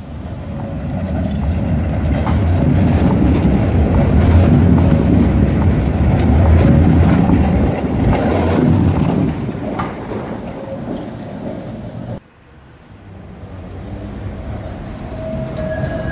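Tram running on rails: a low rumble that swells over the first few seconds and eases off, cut off suddenly about twelve seconds in. A quieter rail rumble follows, with a thin steady squeal near the end.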